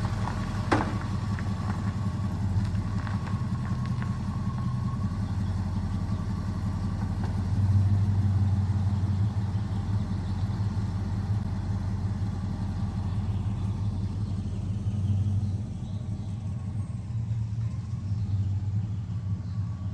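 1965 Ford Mustang's 289 V8 engine running with a steady low rumble, swelling briefly about eight seconds in. A single sharp click comes near the start.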